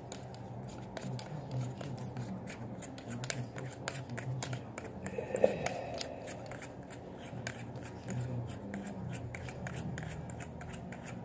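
Hands unscrewing the threaded sections of a Thor M2 laser pointer's body: scattered small clicks and scraping from the threads and fingers. One click about halfway through is louder than the rest.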